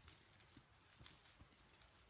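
Faint, steady high-pitched insect chorus, with a few faint clicks, the sharpest about a second in.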